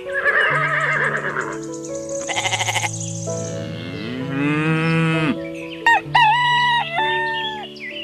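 Light background music with farm-animal call sound effects laid over it, several calls one after another; the longest rises and falls about four to five seconds in, and a few shorter high calls follow near the end.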